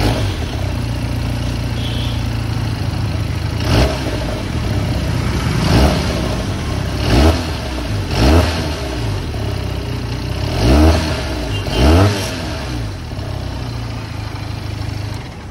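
Benelli 302R's 300 cc parallel-twin engine idling through its stock silencer, blipped six times, each rev rising quickly and dropping back to idle.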